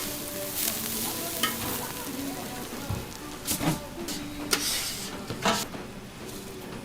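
Food frying and sizzling on a street-stall griddle in a steady hiss, with a few sharp clacks at intervals.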